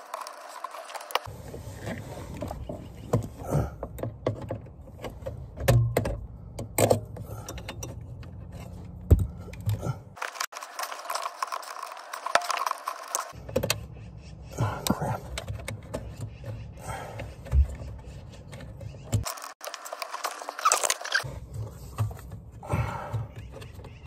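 Irregular clicks, knocks and rattles of hands working among the plastic trim, brackets and wiring around a car's clutch pedal under the dashboard, over a low rumble that cuts in and out.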